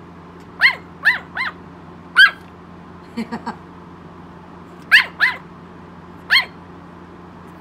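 Tiny Yorkshire terrier puppy yapping: seven short, high-pitched yaps in irregular bursts, with three quick softer sounds a little past three seconds in.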